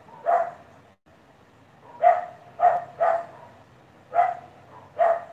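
A dog barking: about six short, separate barks at uneven intervals, one near the start and the rest after a pause of more than a second.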